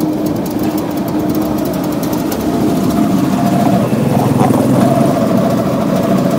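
Motorcycle engine of a tricycle (motorcycle with sidecar) running steadily while riding, its pitch rising a little about four seconds in.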